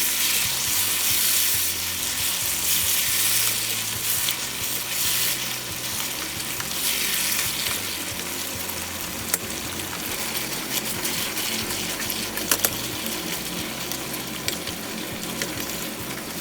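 Food sizzling steadily in a frying pan as it is stir-fried, with a few sharp clicks of the utensil against the pan.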